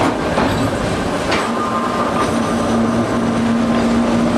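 TEM2 diesel shunting locomotive underway, its diesel engine running and wheels rolling on the rails. A short click comes about a second in, and a steady hum joins shortly after.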